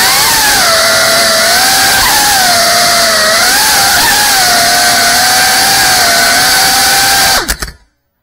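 GEPRC Cinelog35 cinewhoop drone's brushless motors and ducted propellers whining loudly, the pitch rising and falling with the throttle. Near the end come a few quick knocks, then the motors cut out abruptly.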